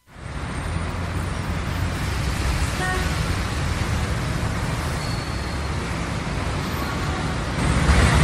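City street traffic: a steady rumble of passing traffic, with a short car-horn toot about three seconds in.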